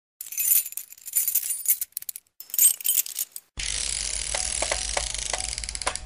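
Title-intro sound effects: scattered high, bright jingling and clinking for about three and a half seconds, then a steady hissing sound bed with faint held tones that starts suddenly.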